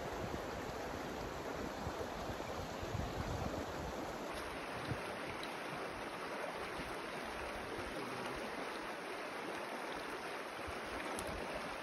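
Shallow mountain river flowing over rocks, a steady rushing of water.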